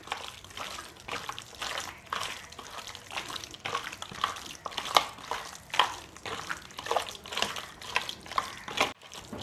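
Hands kneading goat-meat pieces in a thick yogurt, onion-paste and spice marinade, rubbing it into the meat: wet, irregular squelching and smacking.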